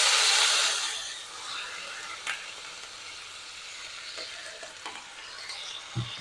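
Sliced radish frying in oil in a stainless steel pan, sizzling loudly as water is sprinkled onto it. The sizzle dies down about a second in to a steady, quieter sizzle, with a brief low thump near the end.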